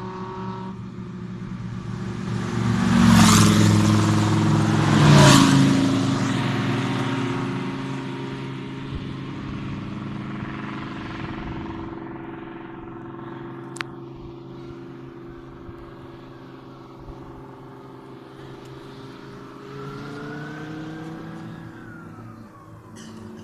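GT3 race cars driving past slowly in a line, engines at low revs. Two cars pass loudly close by about 3 and 5 seconds in, and near the end an engine revs up.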